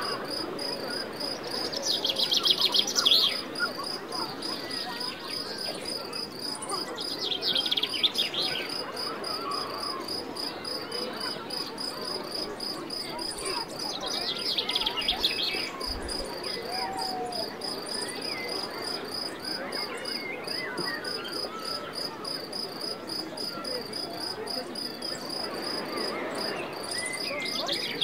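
Crickets chirping in a steady, rapid pulsed trill. Bird calls come in short bursts about two, eight and fifteen seconds in and again near the end, over a soft wash of sea.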